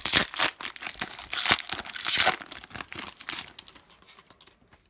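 Foil wrapper of a Panini Contenders trading-card pack being torn open and crinkled by hand: a dense crackle that thins out and stops near the end.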